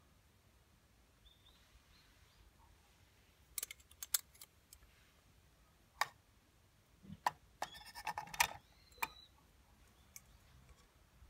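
Scattered light metallic clicks and taps of a stainless steel cup against an aluminium Daiso mess tin as chopped ham is tipped into it, with a denser run of taps and rattles about two-thirds of the way in as the pieces drop into the tin.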